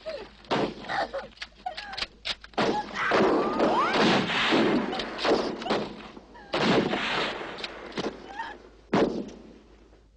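Film sound effects: a rapid series of thuds and sharp knocks with loud rushes of noise between them, the busiest stretch in the middle.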